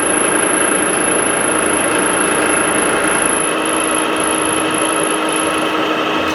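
Power milling cutter running steadily under load, a continuous machine whir with a grinding cutting noise.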